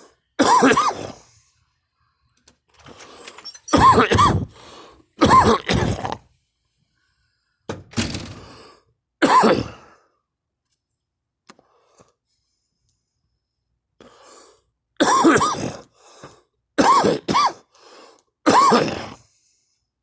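A woman coughing hard in repeated harsh, voiced coughs, one or two at a time, with pauses between the fits: a smoker's cough.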